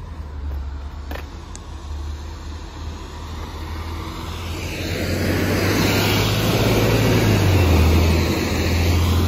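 Traffic on a rain-soaked road: tyres hissing on the wet pavement, growing louder from about halfway as a truck and trailer passes close by, with a steady low hum underneath.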